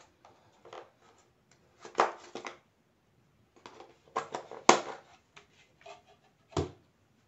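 Plastic wall clock case and its quartz movement being handled: a string of clicks, knocks and rattles, loudest about two seconds in and midway, with a last sharp knock near the end.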